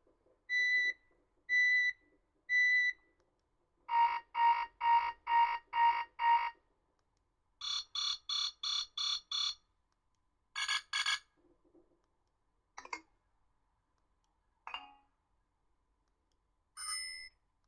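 BlackBerry 8330 Curve's speaker playing a run of short ringtone and alert-tone previews, one after another with pauses between. First come three beeps, then six quick beeps, then six higher beeps, a pair of very high beeps and a few brief chirps.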